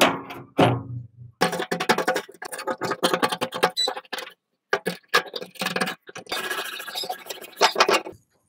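Dried mud crust being picked and crumbled off rusty locking pliers: rapid crunching and scraping in two long runs. It opens with two sharp knocks with a short ring in the first second.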